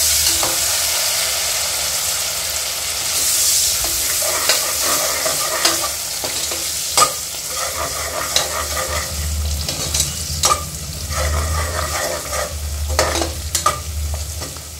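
Chopped onions, green chillies, mint and coriander sizzling in hot oil in an aluminium pressure cooker while a slotted steel spoon stirs them, with scattered clicks and scrapes of the spoon against the pot.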